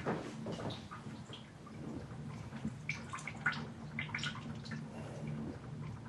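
Water running into a kitchen sink while dishes are washed, with a few light clinks of crockery, most of them a few seconds in.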